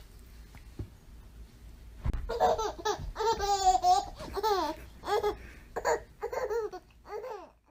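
A baby laughing in a string of high, squealing bursts starting about two seconds in, with one longer, wavering laugh near the middle.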